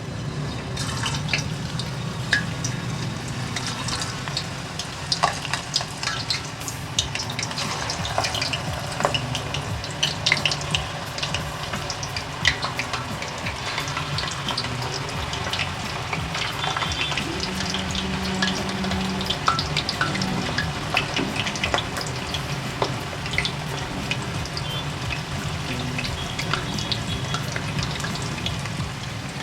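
Paneer pieces wrapped in potato slices deep-frying in hot oil in a kadai: a steady sizzle dotted with many small crackling pops.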